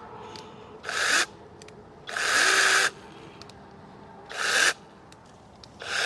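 A 21 V battery-powered 6-inch ImoumLive mini chainsaw is triggered in short blips, its chain spinning freely about four times without cutting. The longest run, near the middle, lasts under a second.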